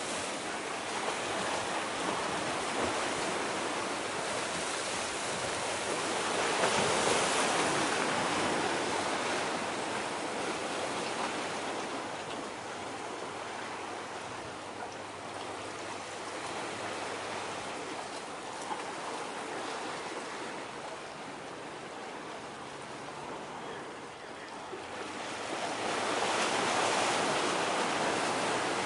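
Sea surf washing ashore, a steady rush of water that swells twice, about a quarter of the way in and again near the end.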